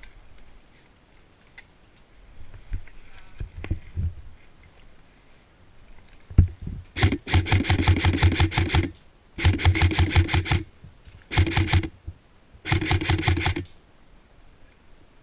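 Airsoft rifle firing four full-auto bursts in quick succession, each a rapid even rattle of shots. The bursts last from about two seconds down to half a second and start about halfway in. Before them come a few low knocks.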